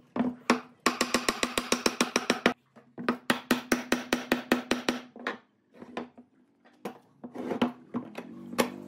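Mallet tapping the joints of a curved wooden frame, two quick runs of light knocks at about ten a second, then a few single knocks near the end.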